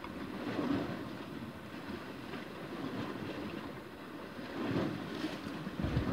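Sea water washing and lapping against rocks, with wind blowing over the microphone; the wash swells a few times, about a second in and again near the end.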